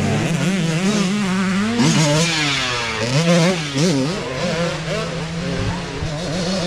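Dirt bike engines revving up and down repeatedly, the pitch rising and falling as the riders work the throttle, with more than one bike heard at once at times.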